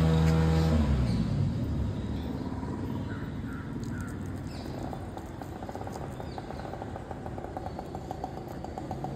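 A motor vehicle's engine passes close by, its hum dropping in pitch and fading about a second in. Steady road background follows, with a few faint bird chirps.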